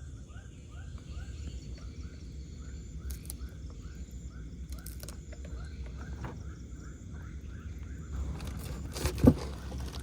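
An animal calling a rapid, even series of short notes, about two or three a second, which stops about eight seconds in. One sharp knock comes near the end.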